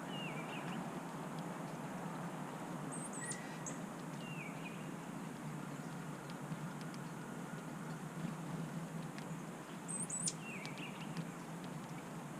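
Small songbird chirping: short, very high calls, each followed by a lower wavering note, in two bursts about seven seconds apart, over a steady low background hum.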